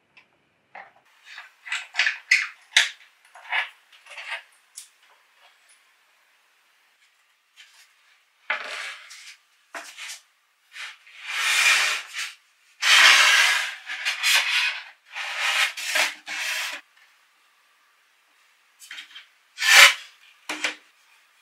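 Hinged laminated Douglas-fir tabletop panels being folded up: light clicks and taps at first, then several long scrapes of wood sliding and rubbing against wood, and one sharp wooden knock near the end as the panels close together.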